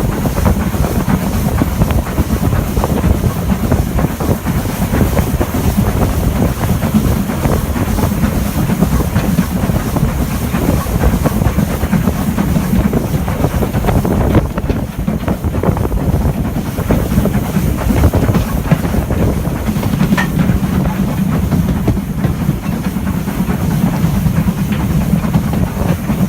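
Steam train running along the line: a steady low rumble and rattle of wheels on track, with steam hiss.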